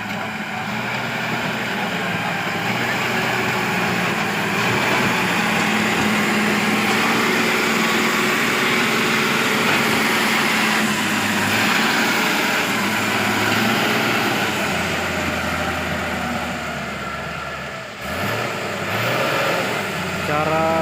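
A heavy vehicle's engine running steadily under some load, with a brief dip and change in the sound about 18 seconds in.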